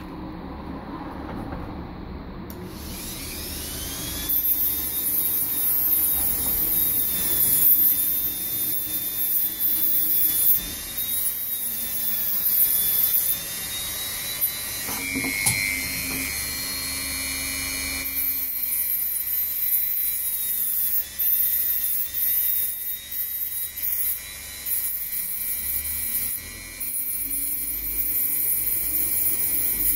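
Handheld rotary tool whining up to speed about two and a half seconds in, then running at high speed while grinding against a small metal part. Its loudness rises and dips as the bit is pressed on and eased off.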